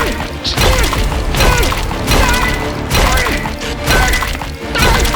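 Loud rock music with a heavy hit about once a second and bending melodic lines between the hits.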